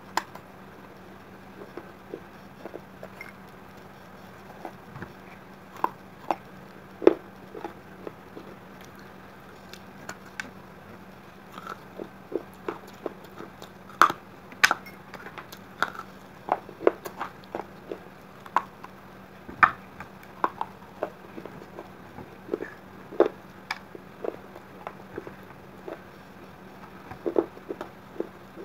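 Shards of a broken fired terracotta clay pot being bitten and chewed, giving irregular sharp crunches and cracks, loudest around the middle.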